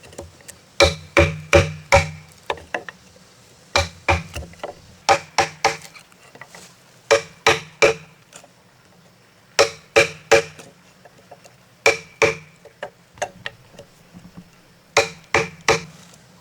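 A hand tool striking a timber post: sharp blows in bursts of two or three, with a burst every second or two, each blow ringing briefly.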